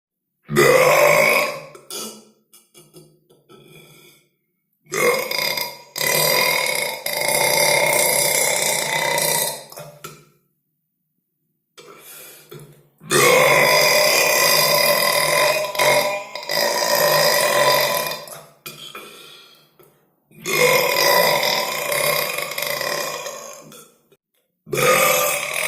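A series of long, drawn-out human belches, about five, each lasting several seconds, with short pauses and a few small belches between them.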